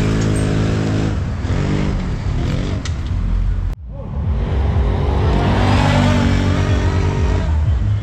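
Large ATV engine revving hard, its pitch rising and falling with the throttle. The sound breaks off abruptly near the middle and comes straight back with another engine revving.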